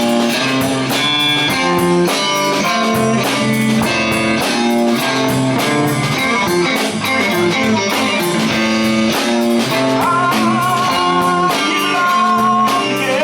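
Live band playing an instrumental guitar-led passage to close the song, with electric guitar over a steady drum beat.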